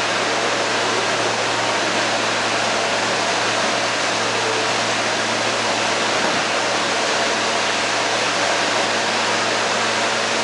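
Steady hiss and low hum of an R160B subway car standing with its doors open, its air-conditioning and ventilation running.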